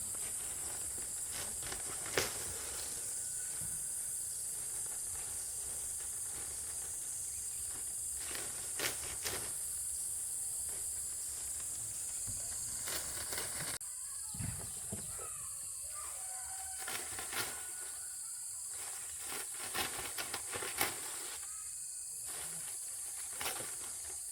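Steady high-pitched insect drone with a few sharp knocks scattered through it.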